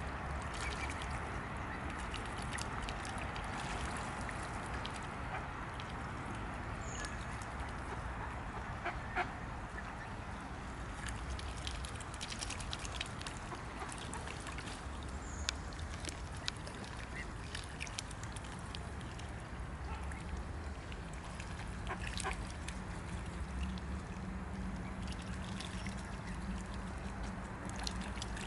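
Juvenile mute swans feeding on floating dandelion greens: bills dabbling in the water and pulling at the leaves, with many scattered small clicks and splashes and a few brief high squeaks, over a steady low background hum.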